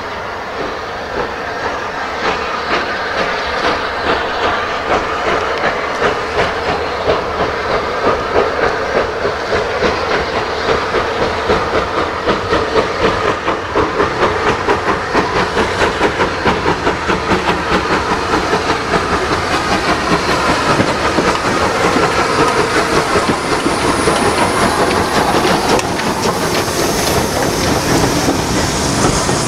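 Battle of Britain class steam locomotive 34053, a three-cylinder Bulleid Light Pacific, pulling away with a train: hiss of steam with strong, regular exhaust beats. Near the end come the carriages rolling past, their wheels clicking over the rail joints.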